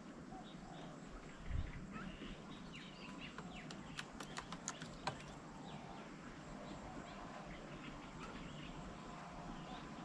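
Outdoor ambience of small birds chirping and calling in the background. A dull low thump comes about one and a half seconds in, and a quick run of sharp ticks follows around four to five seconds in.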